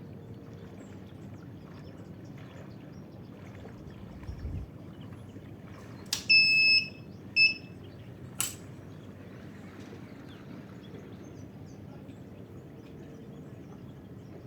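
Small electronic buzzer beeping twice, one long high beep then a short one, with a click just before the first beep and a sharp click about a second after the second. A dull thump comes a couple of seconds before the beeps.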